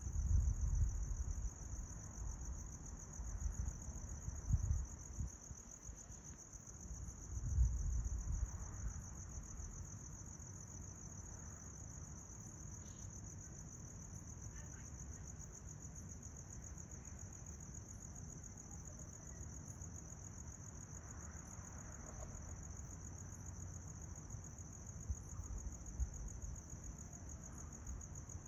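Crickets trilling in a steady, high-pitched chorus. Wind gusts rumble on the microphone during the first several seconds.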